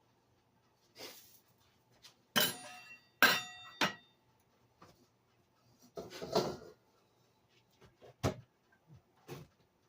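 Metal kitchenware being handled: three sharp clanks with a ringing tone about two and a half to four seconds in, then a brief rustle and a single knock near the end.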